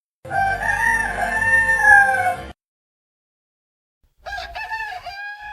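Rooster crowing, two separate crows: a long crow of about two seconds, then dead silence, then a second crow starting about four seconds in, choppy at first and then held on a steady note.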